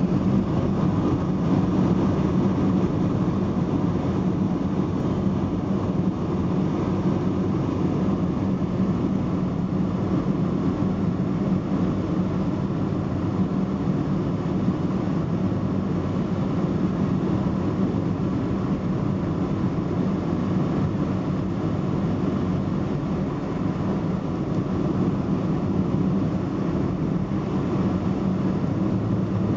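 Steady drone of road and engine noise inside a moving car's cabin, with a low hum and no distinct horn or rail clatter standing out.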